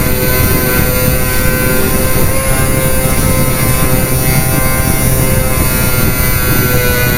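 The twin small electric motors and propellers of a Parkzone Micro Mosquito micro RC plane whining steadily in flight, their pitch wavering slightly, heard from a camera on the plane with wind rushing over it.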